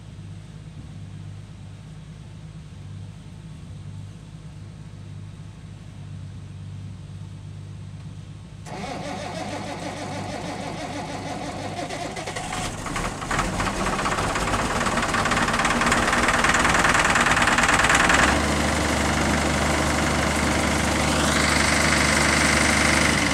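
Allis-Chalmers diesel tractor engine cold-starting at about freezing without its block heater plugged in. A low steady hum comes first. About nine seconds in the engine noise comes in suddenly and builds unevenly as it catches. Near eighteen seconds it drops into a steadier idle.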